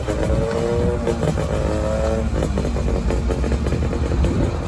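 Small two-stroke twin engine of a Daihatsu Fellow kei car revving as the car pulls away, its buzzing note climbing in pitch, then breaking off about two seconds in and picking up again at a lower pitch.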